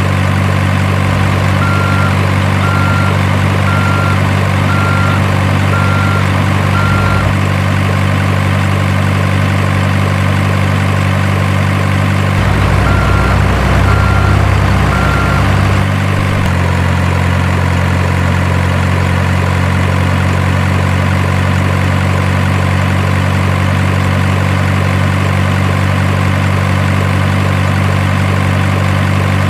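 Simulated heavy diesel truck engine sound for an RC truck, idling steadily, with a reversing beeper sounding in two runs of beeps. A deeper rumble comes with the beeps, and the engine note shifts slightly about two-thirds of the way through.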